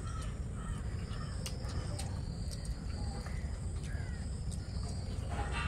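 Eating sounds of hands mixing rice and fish curry and people chewing, heard as scattered small clicks over a steady low background rumble. Birds and insects call faintly in the background.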